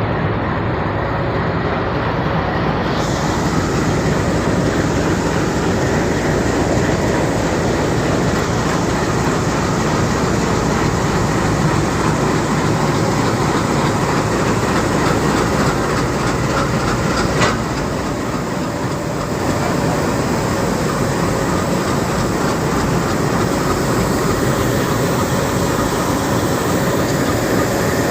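Train running past on the rails: a loud, steady rumble with wheels clattering over the rail joints, and one sharp click about seventeen seconds in.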